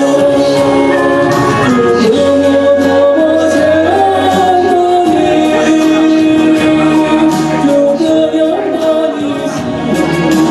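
A man singing a Mandarin pop ballad into a handheld microphone over instrumental accompaniment, with long held notes.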